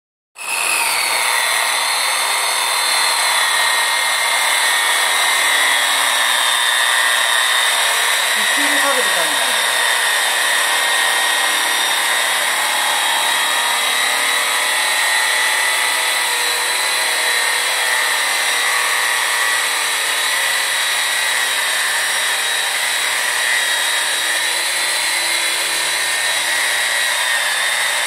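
Handheld electric power brush running steadily with a high whine as it is pushed along a timber board, scouring out the soft wood to raise the grain (ukezukuri). It starts up about half a second in.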